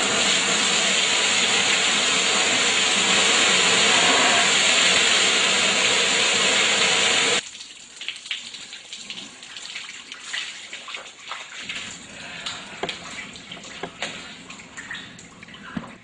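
Laboratory emergency safety shower pouring a steady, loud stream of water after its overhead pull handle is yanked. The water cuts off suddenly about seven seconds in, leaving only small clicks and knocks.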